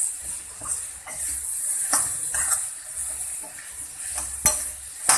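Metal spoon stirring raw mango pieces in a hot iron kadhai: a steady sizzle with scraping and a few sharp clinks of the spoon against the pan, the loudest about four and a half seconds in.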